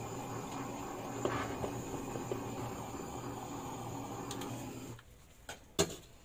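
Kitchen blowtorch flame hissing steadily as it is played over a frozen chocolate mousse cake, cutting off about five seconds in; a sharp knock follows shortly after.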